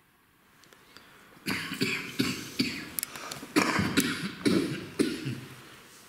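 A person coughing hard in a fit, about eight coughs in quick succession starting about a second and a half in, then dying away.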